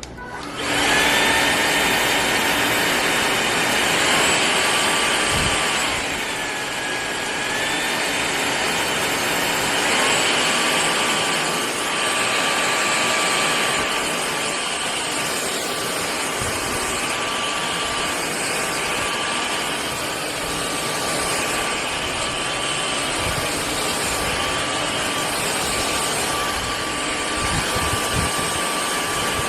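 Cordless stick vacuum cleaner switched on about half a second in, its motor then running steadily with a high whine over the airflow noise; the whine shifts in pitch a few times.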